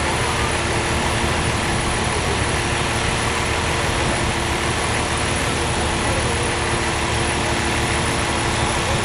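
Lockheed C-5 Galaxy's four turbofan engines heard as a steady, even jet roar from the airborne transport.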